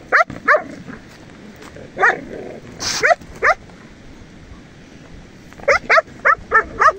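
Shepherd-dog puppy giving short, high yapping barks, guarding its food from the livestock around it. The barks come singly at first, then in a quick run of about six near the end. There is a brief hiss about three seconds in.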